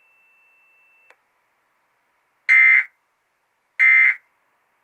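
Emergency Alert System end-of-message (EOM) data bursts: two short, loud bursts of digital warbling code tones about a second apart, starting about two and a half seconds in. They mark the close of the EAS test message.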